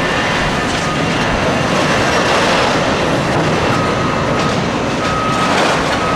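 Bulldozer working, a loud, steady mechanical din, with a reversing alarm beeping about once a second from a little past the middle.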